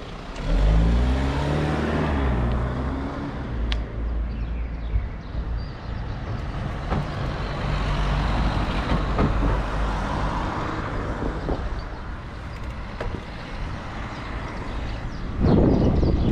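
Street traffic. A motor vehicle's engine rises in pitch as it accelerates, about a second in. Steady traffic rumble follows, growing louder again near the end.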